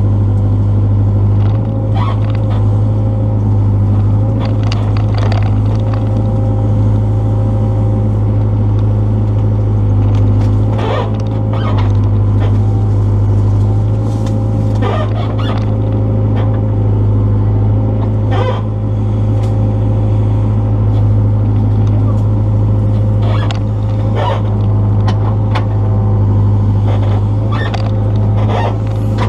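Excavator engine running steadily with a deep, constant hum while it works a stump, with scattered sharp knocks and clanks throughout.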